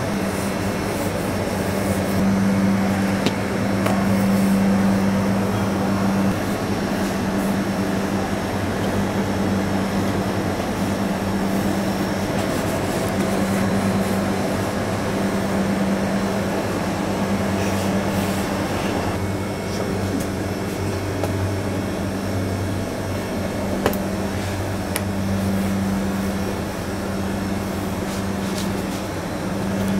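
Steady hum of bakery machinery, a low droning tone that swells and fades every few seconds, with a couple of faint clicks.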